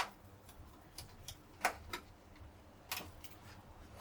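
Scattered faint clicks and taps, about five in four seconds, from hands handling computer parts and tools during PC disassembly.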